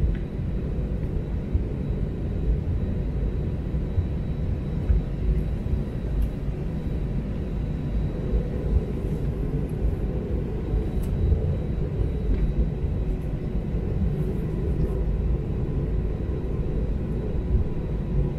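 Steady low rumble inside the cabin of an Airbus A320-200 taxiing on the runway, with a faint steady whine from its idling jet engines.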